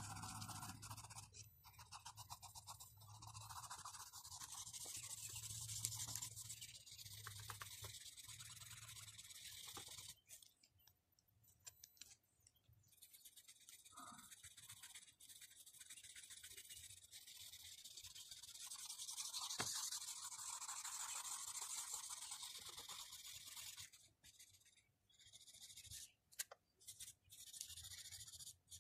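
Charcoal pencil scratching and rubbing on drawing paper in faint stretches of shading strokes, stopping for a few seconds about ten seconds in and again near the end.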